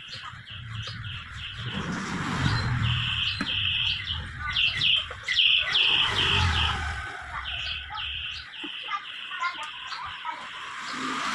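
Small birds chirping in quick repeated runs, over a low hum that cuts off about eight seconds in.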